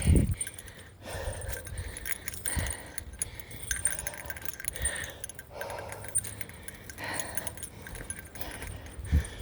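A bear bell jingling steadily with each step, over heavy breathing from a steep uphill climb, with a few low thumps, the loudest right at the start.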